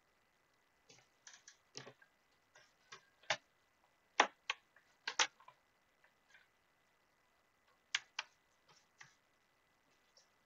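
Computer mouse clicking: a scattering of short, sharp, irregular clicks, some in quick pairs, bunched in the first half and again briefly later on.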